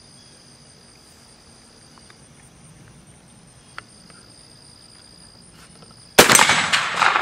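Insects chirping steadily in the background, then about six seconds in a single shot from a Pedersoli reproduction Remington Rolling Block rifle in .45-70, firing a 405-grain smokeless Black Hills round: a sharp, loud report followed by an echo that dies away over a second or so.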